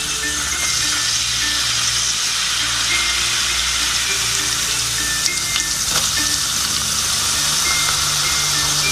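Chopped garlic sizzling in a hot aluminium wok, a steady frying hiss, with a few light clicks around the middle as diced red onion goes in. Soft background music plays under it.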